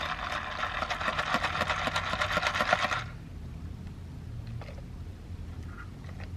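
Ice rattling in a lidded plastic iced-coffee cup as the cup is handled: a rapid, dense crackling rattle for about three seconds that stops abruptly, followed by faint sips from the cup.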